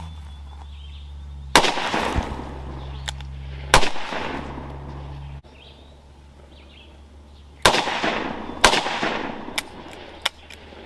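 Four shots from a Rock Island Armory .357 Magnum snub-nose revolver, each a sharp report with a short echoing tail: two about two seconds apart, then after a pause two more about a second apart.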